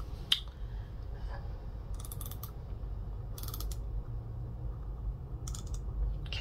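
A small mechanism making three short rasping, ratcheting bursts a second or two apart, after a single click just after the start, over a low steady hum.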